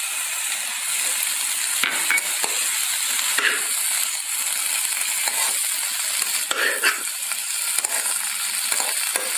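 Broccoli, potato and carrot sabzi sizzling in oil in a kadai as chopped tomatoes are stirred in with a metal spatula. The steady sizzle is broken by a few short scrapes and clicks of the spatula against the pan.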